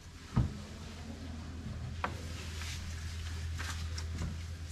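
A low steady hum, with a single knock about half a second in and a few faint light clicks of hands on the newly fitted portlight and its frame.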